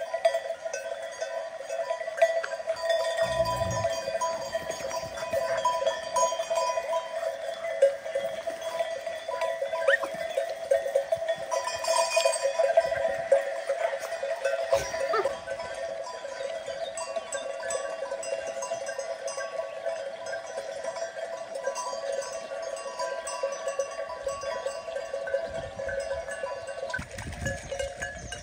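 Many livestock bells clinking and ringing at once, continuously, as a flock moves about.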